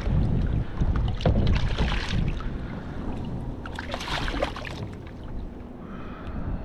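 A striped bass splashing at the surface beside the boat as it is landed by hand, with splashing in the first couple of seconds and another burst about four seconds in as a hand grabs it from the water. A steady low rumble runs underneath.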